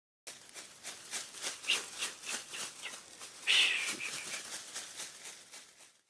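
Intro sound effect of rhythmic swishing strokes, about three a second. A louder, brighter swell comes about halfway through, and the sound then fades out.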